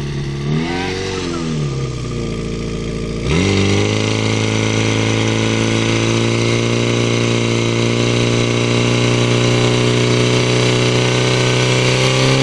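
Portable fire pump's engine revving up and back down once, then jumping to a high, steady speed a little over three seconds in and holding there, as it does when pumping water out to the hose lines.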